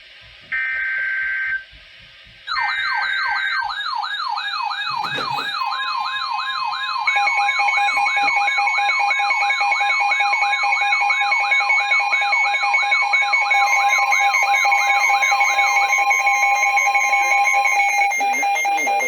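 Emergency Alert System alert tones. Short buzzy data bursts of the SAME header come twice, then a fast-warbling siren tone sets in, sweeping down about four times a second, with steady alarm tones joining a few seconds later and running on after the warble stops.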